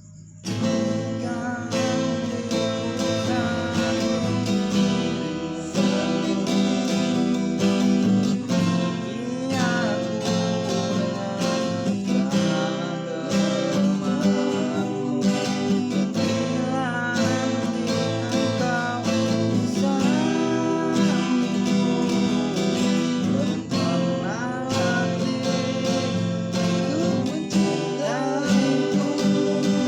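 Acoustic guitar strummed with a voice singing, starting abruptly about half a second in.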